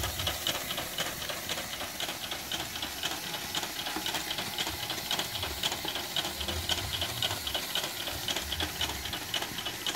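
Motor-driven Lego stair-climb coin spreader running: the electric motor whirs while the plastic lifting steps click and rattle in a rapid, steady patter.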